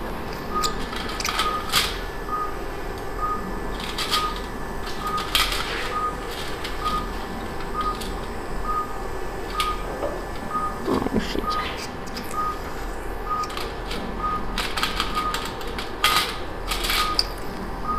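Operating-room patient monitor beeping: one short high pulse-oximeter beep a little under once a second, keeping time with the patient's heartbeat, over a steady low hum. Scattered sharp clicks through it.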